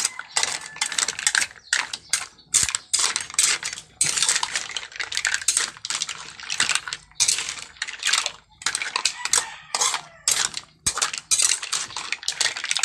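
Green mussel shells clattering against each other and the metal wok as they are stirred with a metal spatula: a dense, irregular run of hard clinks and scrapes.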